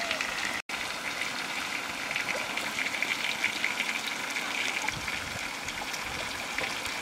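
Pieces of eel sizzling in hot oil in a pan: a steady dense crackle and hiss, with a split-second dropout just under a second in.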